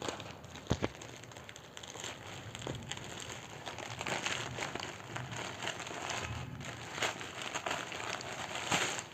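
Plastic packaging crinkling and rustling as a parcel is handled and opened to get at a T-shirt, with a sharp click a little under a second in.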